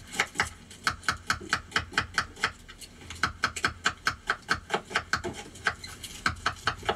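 Knives cutting through small onions: a quick run of crisp clicks, about four or five a second, with a short pause about halfway through.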